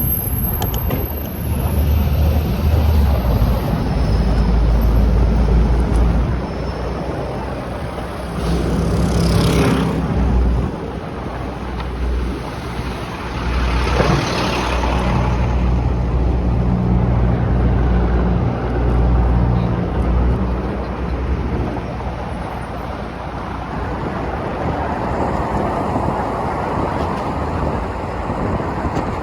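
City street traffic heard from a moving bicycle: motor vehicles running with a steady low rumble, and two vehicles passing by, about a third of the way in and again about halfway.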